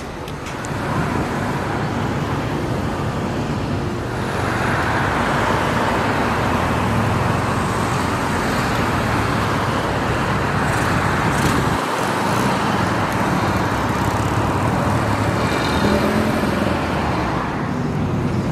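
Classic car engines and exhausts running as cars drive in slowly, getting louder about four seconds in as a car comes closer. The low engine note drops out briefly about twelve seconds in.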